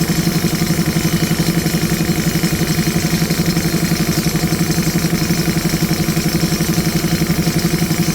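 Diesel engine of a JCB 3DX Super backhoe loader running steadily at a constant speed, with a fast, even throb.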